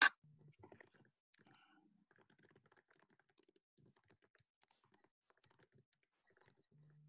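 Computer keyboard typing: a sharp click right at the start, then faint, irregular key clicks.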